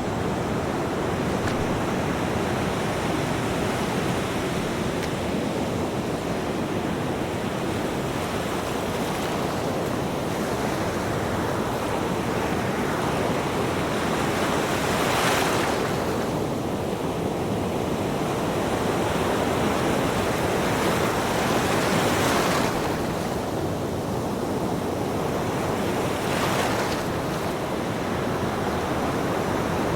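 Ocean surf: a steady rush of waves, with breakers crashing more loudly about halfway through, again two-thirds of the way in, and once more near the end.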